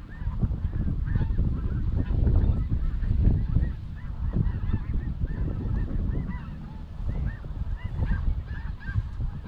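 A flock of snow geese calling overhead: many short, high honks repeating and overlapping, over a loud low rumble.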